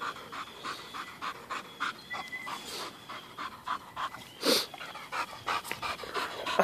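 Dog panting steadily, about three breaths a second, with one louder sound about four and a half seconds in.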